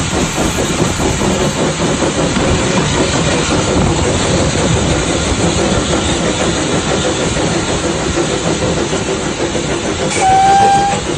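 Small steam locomotive running, heard from alongside the footplate: a steady rumble and hiss of steam and wheels on the rails. Near the end it gives one short whistle blast, a single steady tone lasting about a second.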